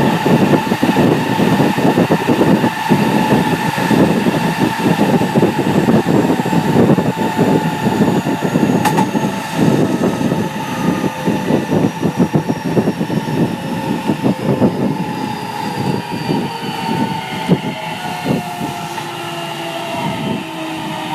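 Running sound inside a JR West 207 series EMU motor car: rail rumble and wheel knocks under the whine of its Toshiba GTO inverter traction motors. Several whine tones slowly fall in pitch as the train slows, and the rumble eases toward the end. This unit's inverter tones are out of step with one another, which gives it an odd, abnormal sound.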